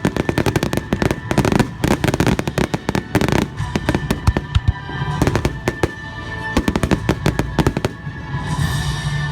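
A rapid barrage of firework bursts, dense for the first three and a half seconds and then thinning out. Music plays underneath and comes forward near the end.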